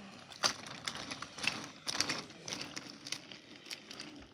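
Irregular light clicks and knocks, a few per second, over a faint rustling.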